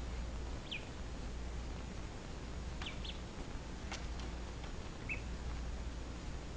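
Duckling peeping: about five short, high peeps spaced out over a few seconds, each dropping slightly in pitch, over a steady low hum.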